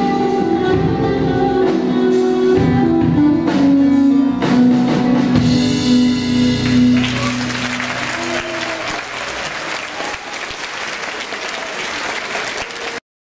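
Live band with guitar and drum kit playing the last bars of a song, then audience applause over the second half, which cuts off suddenly near the end.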